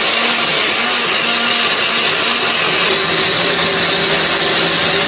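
Countertop blender running steadily, grinding red chillies, shallots, garlic and candlenuts with a little oil into a smooth spice paste. The motor's hum drops slightly in pitch about three seconds in.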